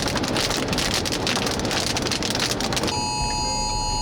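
Heavy rain pelting a vehicle, then about three seconds in a loud two-pitch electronic alert tone starts sounding, typical of a phone's wireless emergency alert for a tornado warning.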